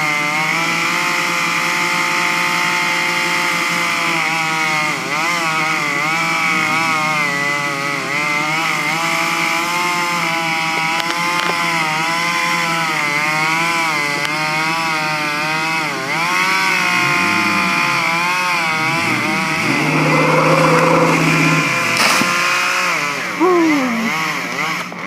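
Chainsaw running and cutting a palm trunk, its engine pitch rising and sagging as the chain loads and frees. Near the end the revs drop away.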